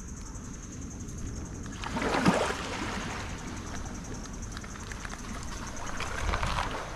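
Water splashing and gurgling, with a sharp surge about two seconds in and a second, smaller swell near the end, over a steady thin high-pitched hum.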